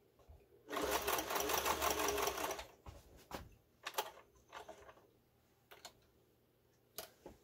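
Singer 431G slant-needle sewing machine running for about two seconds with a rapid, even stitching rhythm, sewing through denim, then stopping. Several light, separate clicks follow.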